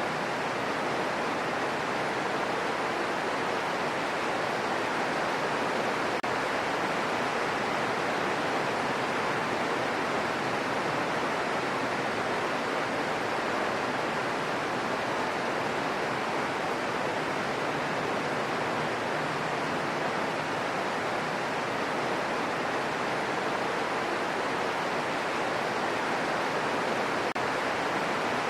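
Gentle steady rain falling, an even hiss that doesn't change.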